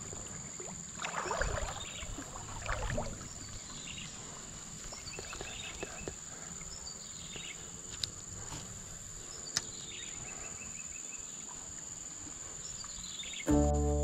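Steady high-pitched drone of insects in the streamside vegetation, with a run of short chirping calls that fall in pitch, repeating about every second or so. A couple of brief low bumps come in the first three seconds, and background music with plucked notes starts just before the end.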